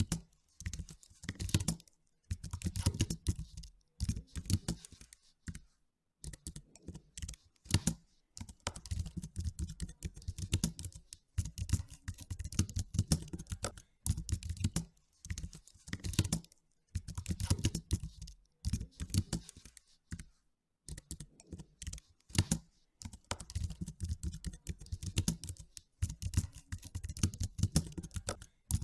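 Typing on a computer keyboard: quick runs of keystrokes, each lasting a second or two, with brief pauses between them.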